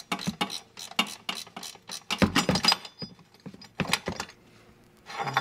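Ratcheting wrench clicking in quick runs of short sharp clicks with pauses between them, loosening the bolt that holds an air spring's lower spring pad adapter.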